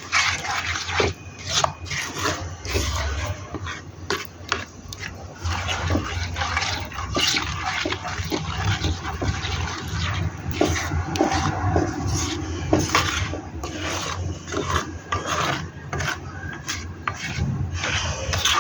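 Kitchen food-preparation sounds: continuous rubbing and scraping with many small knocks and clicks.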